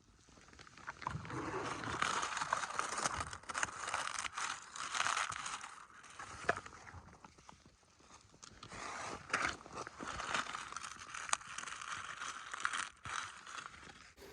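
Dry leaves rustling and crunching in uneven bouts, with sharp crackles, as they are handled or stepped on.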